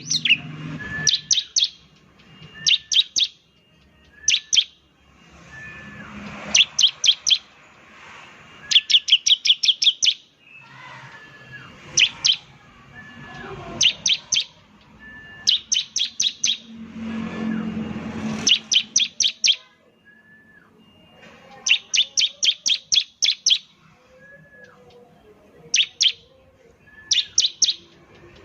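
Bar-winged prinia (ciblek) singing in the rapid 'nembak' style: repeated bursts of several quick, sharp, high notes fired in a row every second or two, with a short, lower, hooked call between the bursts.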